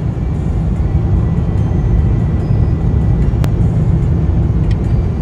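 Steady low roar of an Airbus A350-900 passenger cabin on approach, engine and airflow noise together. A single sharp click sounds about three and a half seconds in.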